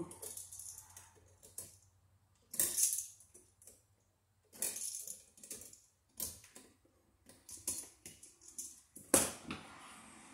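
Small metallic clicks and rattles of needle-nose pliers bending a bare copper ground wire into a loop for an outlet's ground screw, in scattered bursts, the loudest about nine seconds in.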